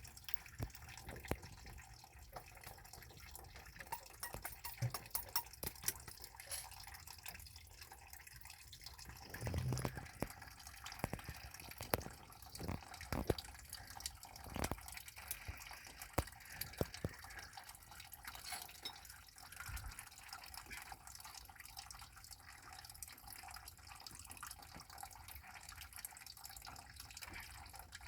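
Scattered small clicks, taps and knocks of hand tools working at a metal clamp on a water heater's sweat adapter, busiest from about ten to fifteen seconds in, with a couple of duller thuds.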